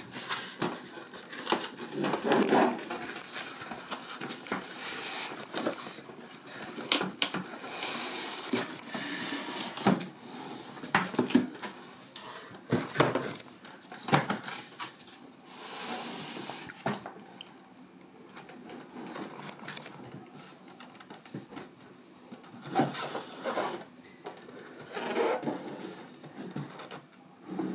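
Hands handling packaging: rustling and scraping of cardboard and a foam sheet, with irregular knocks and taps as a boxed model is moved on a table. The handling is busiest at first, eases off for a few seconds, then picks up again with a couple of louder bumps near the end.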